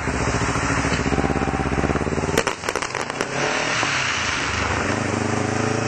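Kawasaki Ninja 300 parallel-twin engine running under way, with a quick cluster of firework crackles and bangs about two and a half seconds in as the engine note briefly drops.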